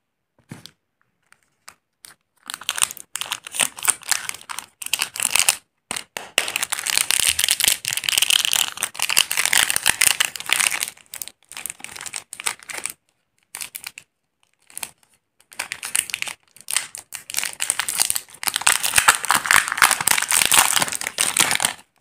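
A KitKat bar's plastic wrapper crinkling and crackling in the hands and being torn open, in long runs of dense crackle broken by short pauses. It starts after a few faint clicks, with a quieter lull about two-thirds of the way through.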